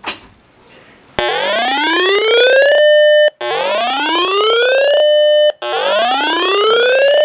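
Synthesized emergency-alert attention tone, sounded for a severe thunderstorm warning: a rising whoop that climbs for about a second and a half, holds at the top briefly and cuts off, repeated three times about two seconds apart. A short click comes right at the start.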